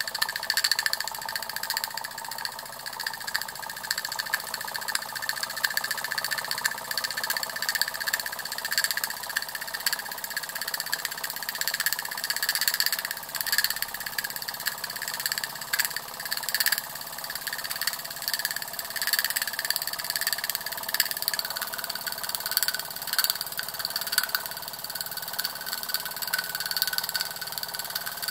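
Latimer L5 toy steam engine running steadily under steam, a fast, even patter of beats over a steady hiss.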